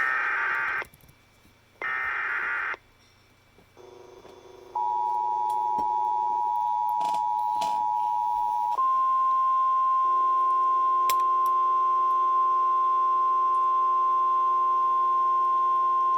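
Emergency Alert System tones: the last two short buzzy bursts of the SAME data header, then the steady two-tone EAS attention signal for about four seconds. It then switches to a single steady NOAA Weather Radio 1050 Hz warning tone held for about eight seconds, heralding a tornado warning.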